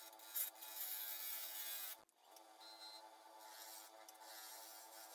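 Laguna 1836 wood lathe running with a steady hum while a gouge cuts the spinning mallee burl and resin blank, making a hissing, scraping shaving sound. The cutting is loudest in the first two seconds, breaks off for a moment, then carries on more quietly.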